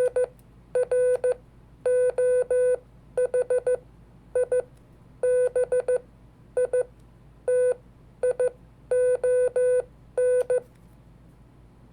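Morse code sent by hand on a practice oscillator: a steady mid-pitched beep keyed on and off in dots and dashes, letter by letter with short gaps between, stopping about a second before the end.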